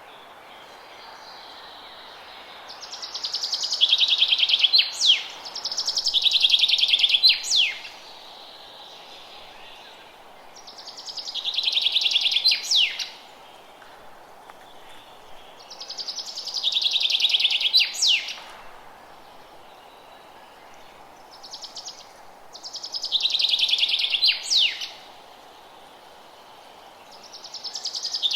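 A songbird singing the same song over and over, about every five or six seconds: a fast, buzzy trill that swells and ends in a couple of sharp, high sweeping notes, over a steady background hiss.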